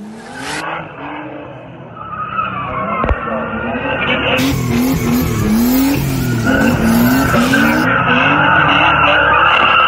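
Car drifting: the engine revs rise and fall about twice a second as the throttle is worked, while the tyres squeal against the tarmac.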